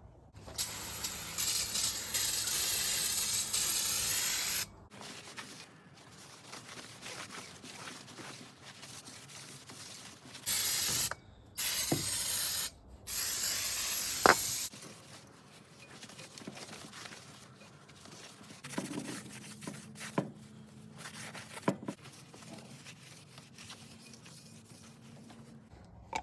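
Pressurised spray hissing in four bursts: one long blast of about four seconds, then three shorter ones, with a few light knocks of parts being handled in the quieter stretches.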